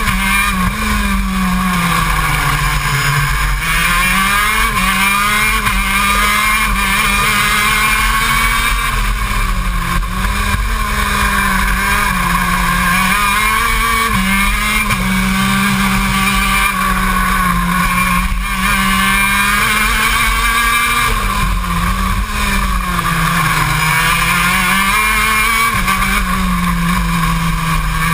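KZ2 shifter kart's 125cc two-stroke engine running hard at race pace, its pitch rising and falling again and again as it accelerates and slows.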